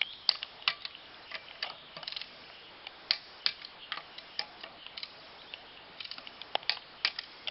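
Ratcheting torque wrench clicking as car wheel nuts are tightened to 115 Nm: sharp, irregularly spaced clicks, about one or two a second.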